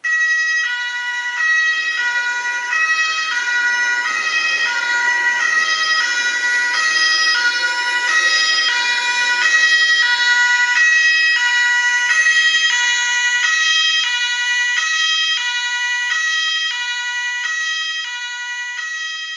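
Two-tone emergency-vehicle siren sound effect from a Märklin model-railway sound function, alternating between a high and a low tone about every two-thirds of a second. It comes on suddenly and fades a little near the end.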